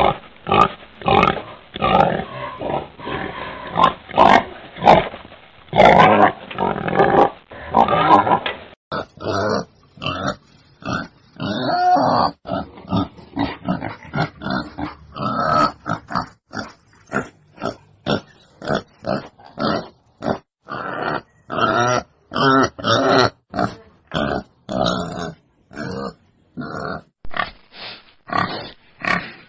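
Wild boar grunting over and over in a rapid series of short grunts. About nine seconds in the recording changes, and the grunts become shorter and more spaced out.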